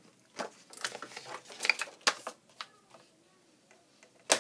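Scattered light taps and clicks as paper and crafting tools are handled on a desk, then one sharp click just before the end.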